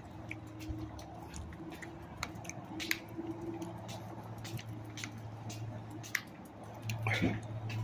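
Light, irregular clicks and scuffs of a person and a small leashed dog walking on a concrete walkway, over a low steady hum, with a brief louder sound about seven seconds in.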